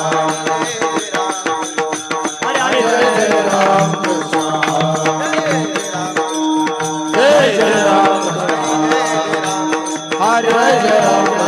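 Devotional bhajan music: a singer's drawn-out, wavering melodic phrases over a steady held drone and a fast, even hand-drum beat with jingling cymbals.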